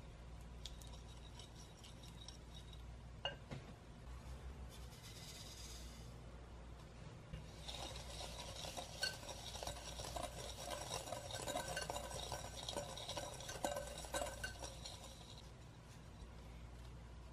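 Wire whisk stirring softened butter in a glass bowl, with light clinks against the glass. About five seconds in, a brief hiss as granulated sugar is poured in, then a denser gritty scraping and clinking for about eight seconds as the whisk works the sugar into the butter.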